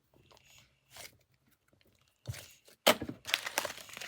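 Plastic packaging crinkling and rustling as a foam squishy toy is handled and unwrapped, faint at first, then a louder burst of crackling about three seconds in.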